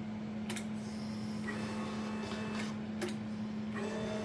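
A lathe's rapid-traverse feed motor driving the slide along its ball screw in two short whirring runs, with sharp clicks at about half a second and three seconds, over a steady electrical hum. The traverse is too fast for fine positioning.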